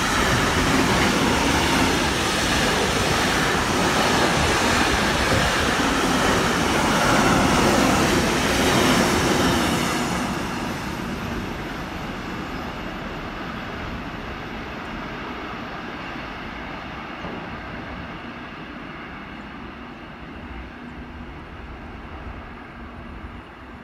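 Freight train of container and tank-container wagons passing close by at speed: loud, steady wheel-on-rail noise that starts to fade about ten seconds in and dies away to a low, distant sound as the train moves off.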